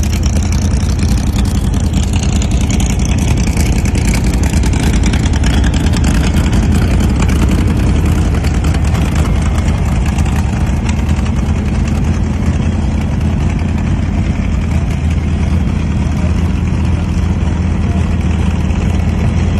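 Rat rod truck's engine idling loudly and steadily through open headers and a short stack exhaust.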